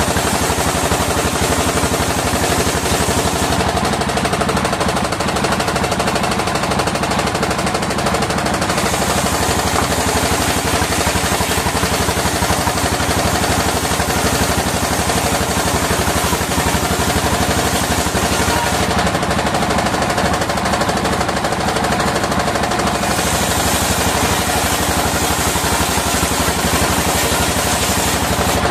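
Engine-driven circular-saw mill running steadily with a rapid, even engine knock. The higher hiss drops away twice for a few seconds, about a third of the way in and again past the middle.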